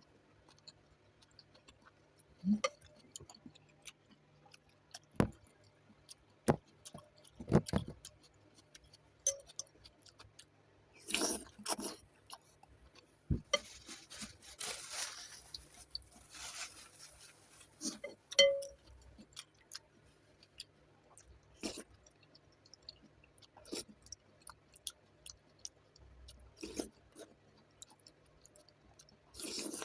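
Close-miked eating of noodles with vegetables and pork: chewing, with scattered short taps and clinks, and a longer noisy stretch of a few seconds in the middle.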